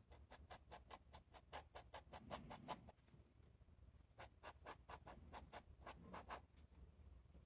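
Fountain pen's steel nib scratching on paper in quick hatching strokes, faint: a rapid run of short scratches, about seven a second for about three seconds, a pause, then a second shorter run.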